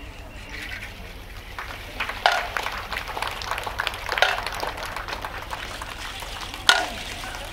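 Dancers' leg rattles shaking in a dense crackling patter that grows busier about two seconds in, as the group dances. Three loud, sharp accents stand out, roughly two seconds apart.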